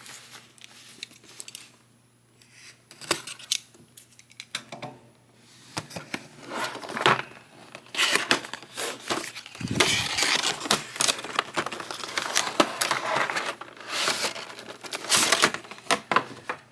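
Plastic packaging of a boxed action figure set being handled and opened. There are scattered clicks and taps at first, then dense crinkling and rustling of plastic trays from about six seconds in.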